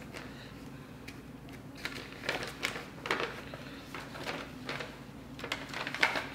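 A folded paper instruction sheet rustling and crinkling as it is opened out and handled, in a handful of short crackles, more of them about two to three seconds in and again near the end.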